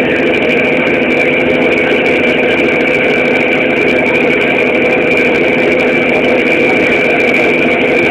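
A ship's engine running steadily, heard on board as a constant hum with a thin high tone held above it.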